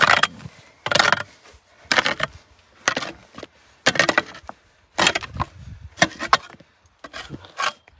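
A pick striking and chopping into stony earth, about one sharp blow a second, around eight strikes in all.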